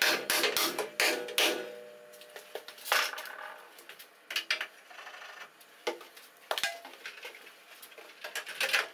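Hammer blows ringing on car-body sheet metal held under a chain pull, tapped to relieve stress so the panel settles into its new shape. A quick run of blows at the start, a few spaced ones, then a fast cluster near the end.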